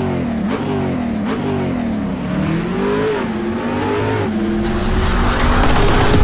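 Car engine revving, its pitch rising and falling several times, with a rush of noise building toward the end.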